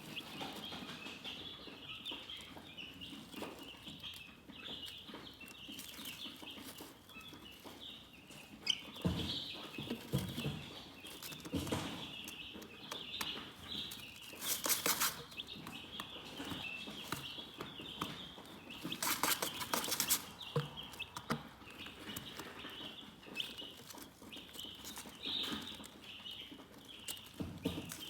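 Chickens chirping continuously in a high-pitched chorus, with a couple of brief rustling bursts about halfway and two-thirds of the way through.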